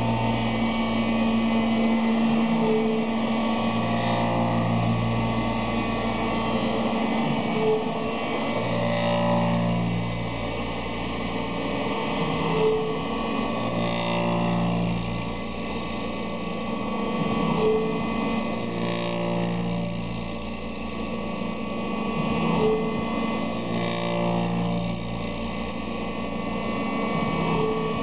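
Bridgeport Interact 520 CNC milling machine running, its spindle and end mill cutting a white plastic block. It runs as a steady hum, with the cutting sound swelling and easing about every five seconds and a short tone at each repeat.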